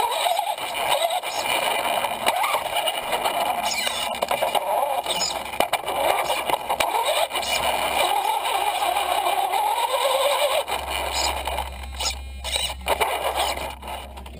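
Traxxas Stampede 4x4 VXL RC truck's brushless motor and gear drivetrain whining, the pitch rising and falling as the truck speeds up and slows down, with rattle from the chassis and tyres over the floor. It quietens near the end.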